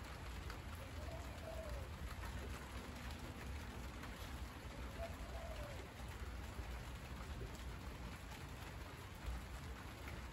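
Steady rain falling on monstera leaves, an even hiss with many small drop hits. A bird calls twice over it with a low rising-and-falling note, about a second in and again near the middle.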